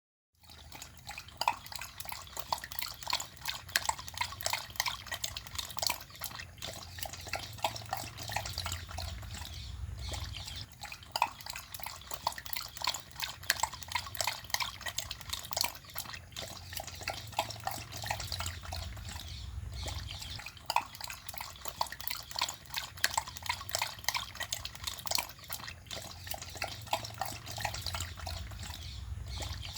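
Dog lapping water with quick, wet laps, pausing briefly every few seconds.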